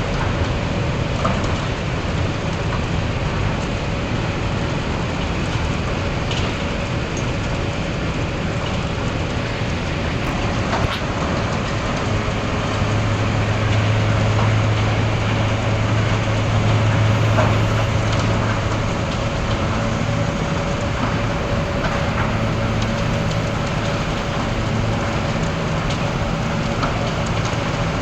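Heavy mobile crane's engine running steadily under a constant rushing noise. A deep hum swells louder about halfway through and then eases off again.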